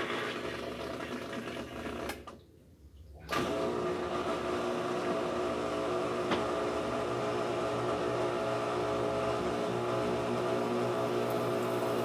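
Whirlpool top-load washing machine running at the start of its spin cycle, the drum turning with a steady motor hum. The motor cuts out for about a second a couple of seconds in, then runs on steadily, with no drum banging on its freshly repaired suspension.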